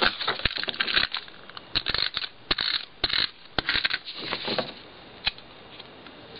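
Paper rustling and crackling as paper pieces are handled and pressed down by hand, a run of irregular sharp crinkles and clicks that dies away after about four and a half seconds, with one last click shortly after.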